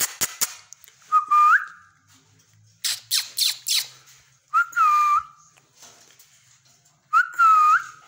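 Indian ringneck parakeet whistling: three short clear whistles, each held and then rising at the end. A quick run of four sharp, falling calls comes between them, and a few sharp clicks come near the start.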